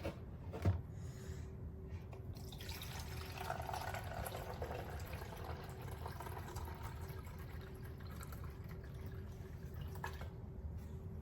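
A sharp click, then water running steadily for about seven seconds.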